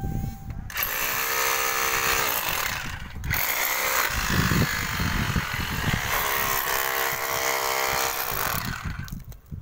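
Electric hammer drill cutting into a brick wall: motor whine over a rapid hammering rattle. It starts just under a second in, breaks off briefly around three seconds, runs again and stops shortly before the end.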